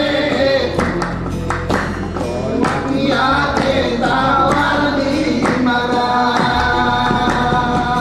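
Didong Gayo singing: male voices singing a Gayo vocal line into one microphone, over sharp hand-struck beats from clapping and striking a cushion.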